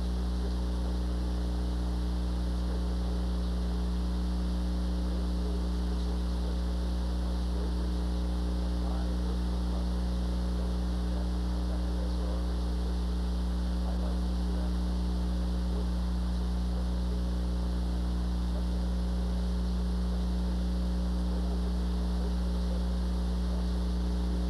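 Steady electrical mains hum with a stack of higher overtones, over a faint hiss.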